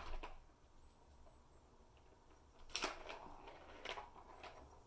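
Plastic balls knocking and rattling in a Catit Senses Super Roller Circuit ball track as kittens bat at it: a few faint, short clatters, the loudest nearly three seconds in.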